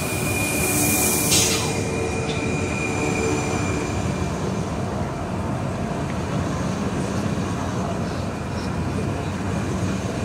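Rhaetian Railway Stadler Capricorn electric multiple units rolling slowly past close by: a steady rumble of wheels and running gear with a thin, steady high whine. A brief hiss comes about a second in.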